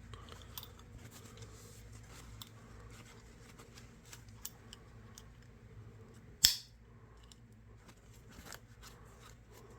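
Faint scattered clicks and taps from handling a small metal pocket knife on a table, with one sharper click about six and a half seconds in.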